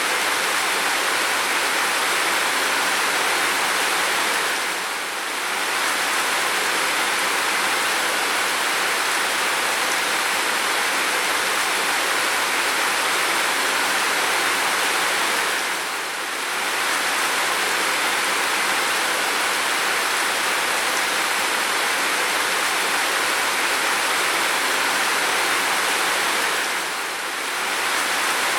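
Steady rain with an even hiss. The level dips briefly three times at even intervals, about eleven seconds apart.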